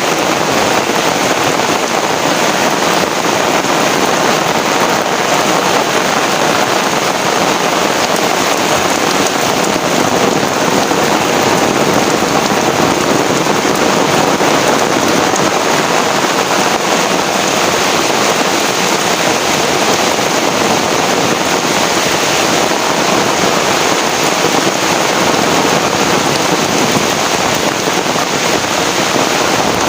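Heavy rain pouring down steadily, a dense, even hiss of drops on surfaces without a break.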